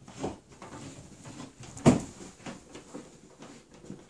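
Handling noise from a water hose and its threaded fitting being worked into place: small clicks and rustles, with one sharper knock about two seconds in.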